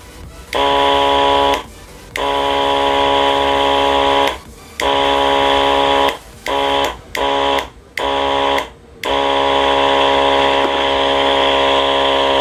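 Small 12 V diaphragm spray-pump motor running at full speed on direct battery power, switched on and off with a rocker switch. It starts and stops about seven times, several times in quick succession in the middle, then hums steadily for the last few seconds.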